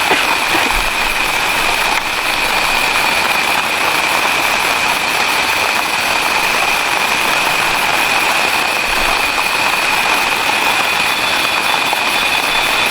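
Steady rain falling on the forest, a constant even hiss, with a steady high thin tone over it.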